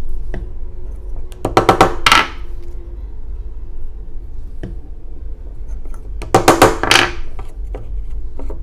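Two short bouts of rapid clicks and knocks, each under a second, about five seconds apart, with a few faint single ticks between: hand work with a wooden dowel, a glue squeeze bottle and a wooden hull on a workbench while the dowel pegs are glued into their holes.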